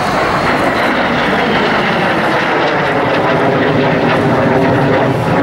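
Lockheed T-33 Shooting Star's Allison J33 turbojet running loud and steady as the jet passes, with a high whine that slowly falls in pitch.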